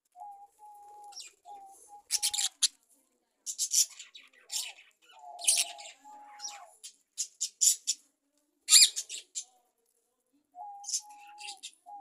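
Budgerigars chirping and chattering: clusters of sharp, scratchy high-pitched chirps with short steady whistled notes in between, pausing briefly about two-thirds of the way through.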